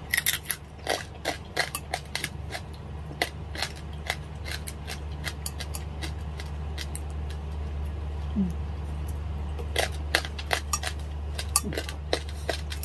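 Close-up eating sounds: sharp crackling clicks of crunchy lechon (roast pork) being bitten and chewed, mixed with light clinks of food and utensils on a plate. The clicks come thickly in the first few seconds, thin out, then pick up again about ten seconds in.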